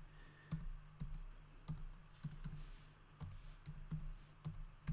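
Typing on a computer keyboard: about a dozen separate key clicks at an unhurried, uneven pace as numbers and commas are entered.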